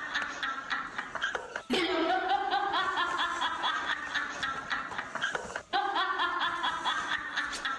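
A rapid, pulsing, snicker-like vocal sound in runs of a second or two, its pitch stepping upward. It breaks off briefly twice.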